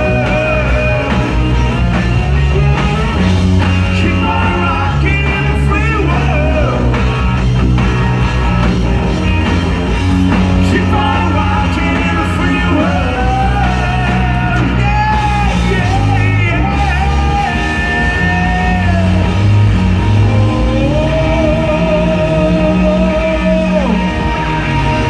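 Live rock band playing loud through the venue's PA: a male lead vocal over electric guitar, bass and drums. In the second half the singer holds several long notes with vibrato.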